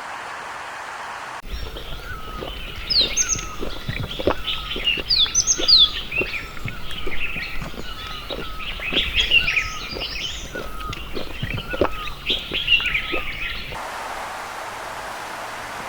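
Many birds calling at once: a busy mix of short chirps and quick falling whistles over a low hum. It starts abruptly about a second and a half in and stops abruptly near the end, leaving a steady hiss like rain.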